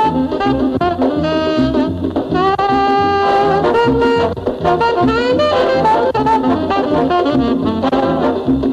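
Mambo dance-band music: brass and saxophones play over a driving, evenly pulsing bass and percussion rhythm. There is a long held horn chord about three seconds in.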